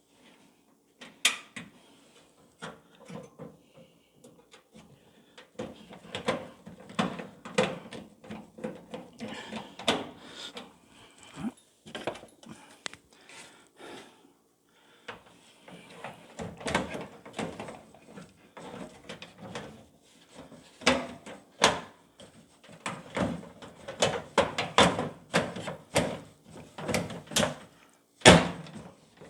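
Irregular knocks, clicks and clatter of a microwave's metal guard and top cover being handled and fitted back in place.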